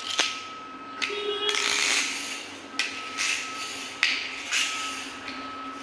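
Handling noises: a run of short rustles and clicks, with a steady faint high-pitched tone underneath.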